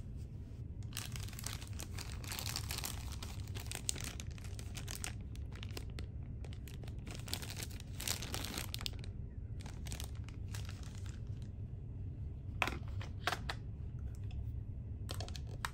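A clear plastic earphone packet crinkling as it is handled, in dense stretches through the first half and then sparser, with a couple of sharp clicks in the last few seconds. A steady low hum runs underneath.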